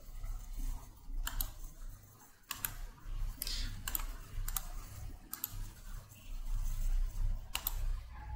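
Computer mouse clicking, about seven sharp clicks at uneven intervals as dropdown menu items are selected, over a low steady background hum.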